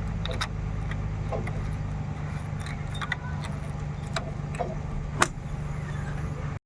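Heavy diesel engine running steadily, with scattered sharp metallic clinks and clanks over it, the loudest about five seconds in.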